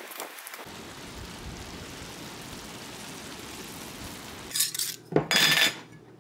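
Sap at a steady rolling boil in a steel evaporator pan, an even bubbling hiss. About four and a half seconds in this gives way to a few loud scrapes and clinks of a metal lid being unscrewed from a glass mason jar.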